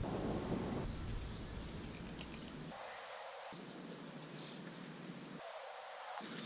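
Outdoor ambience: a steady hiss with a low wind rumble on the microphone in the first second, and a few faint bird chirps.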